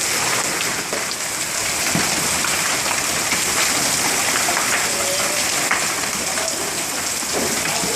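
Heavy hail and rain pelting down: a dense, steady hiss with scattered sharp ticks of hailstones striking hard surfaces.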